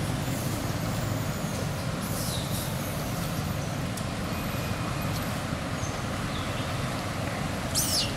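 Young macaques giving high, thin squeaks as they play, with a sharper squeal falling in pitch near the end, over a steady low background rumble.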